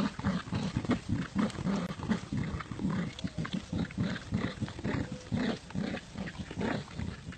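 Dogs growling in play while tugging on a toy, in a run of short, rough growls about two or three a second.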